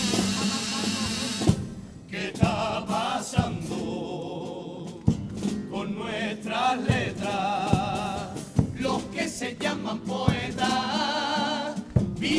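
Male carnival chirigota chorus singing together in phrases, accompanied by drum hits that land about every second and a half to two seconds.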